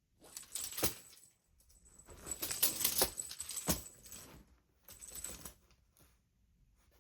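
Cat play with a teaser wand toy: four bursts of rattling and clatter, with a few sharp clicks in the middle, as the toy and the cat move about.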